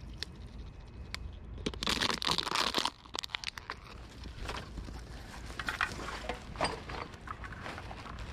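Crinkling, rustling and crunching from litter being handled in dry grass, with a dense crackle about two seconds in that lasts about a second, then scattered small crunches and clicks.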